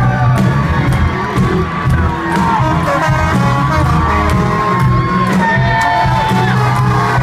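Amplified live band music with a heavy, steady bass, and a crowd cheering and whooping over it.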